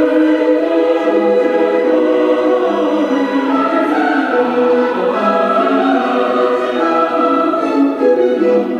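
Choral music: a choir singing long, held notes.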